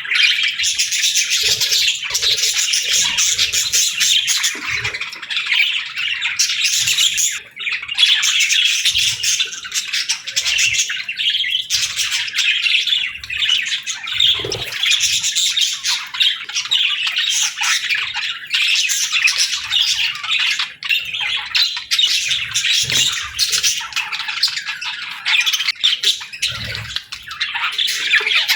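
A flock of budgerigars chattering continuously: dense, overlapping chirps, warbles and squawks.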